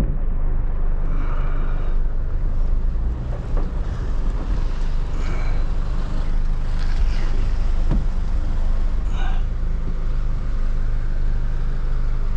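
Heavy rain pelting down on a vehicle's roof and windscreen, heard from inside the cab over the low, steady rumble of the vehicle's running engine.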